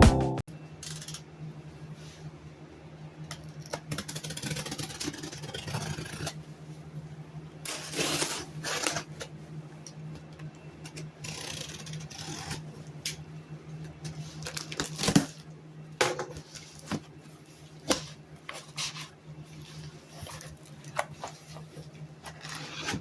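Cardboard shipping box being handled and opened: irregular rustling and scraping with several sharp knocks, the loudest about fifteen seconds in, over a steady low hum.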